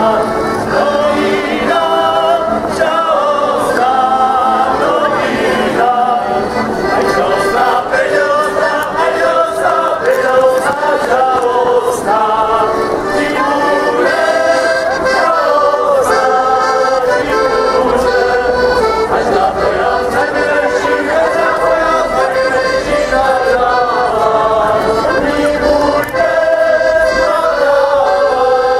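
An accordion playing a folk tune with a group of voices singing along.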